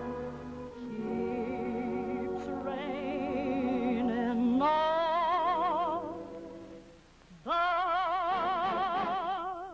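A soprano singing in operatic style with wide vibrato over orchestral accompaniment. She holds a long lower note, leaps to a high held note about halfway through, breaks off briefly, and comes back on another high held note near the end.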